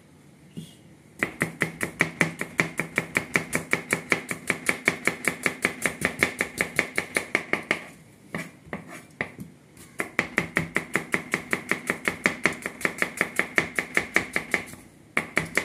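Kitchen knife slicing onions on a plastic cutting board: quick, even chopping strokes about five a second, in two long runs broken by a pause of about two seconds in the middle.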